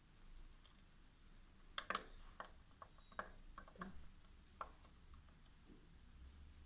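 Faint irregular clicks and light taps, about a dozen over some three seconds, from a glass pipette being worked in the neck of a glass flask while solution is drawn up into it.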